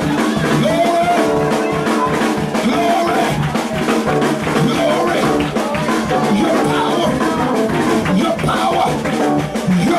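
Live church praise-break music: a drum kit playing a driving beat under held keyboard chords, with voices raised over it.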